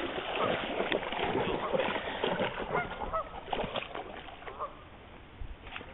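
Geese honking repeatedly, over splashing from dogs wading in shallow water, which is louder in the first half.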